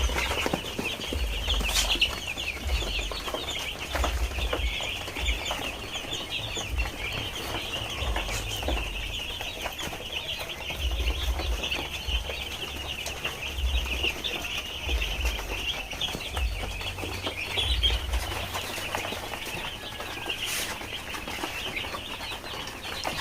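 A flock of five-day-old broiler chicks peeping continuously, many short high cheeps overlapping, with intermittent low rumbling underneath.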